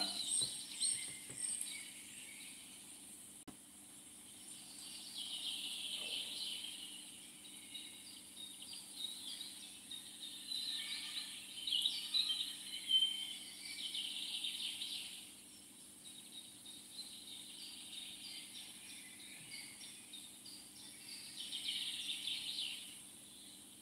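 Outdoor countryside ambience: a steady high-pitched insect drone, with spells of chirping from insects and birds coming and going.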